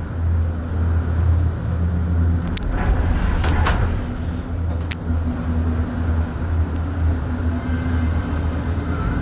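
Skyliner gondola cabin running through the turn station: a steady low hum from inside the cabin, with a few sharp clicks along the way.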